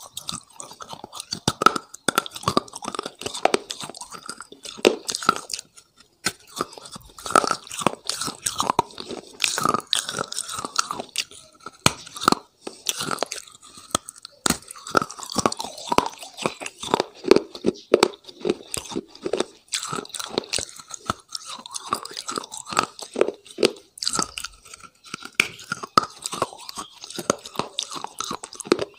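A person biting and chewing a dry, crunchy food close to a lapel microphone: dense, irregular crackling crunches with wet mouth sounds between bites.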